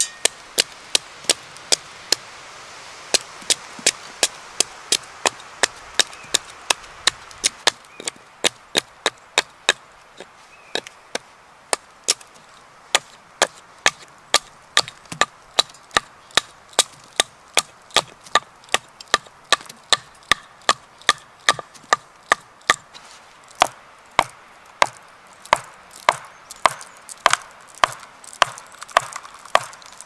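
Hatchet chopping into a log on a chopping block, hewing it flat: quick, regular sharp blows of steel into wood, about two to three a second, with a short pause a couple of seconds in.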